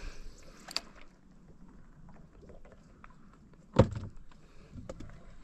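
Light clicks and knocks of fishing gear handled on a kayak, with one sharp, loud knock near four seconds in.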